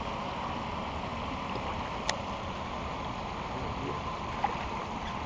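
Steady rushing outdoor noise of running water and wind, with one sharp click about two seconds in.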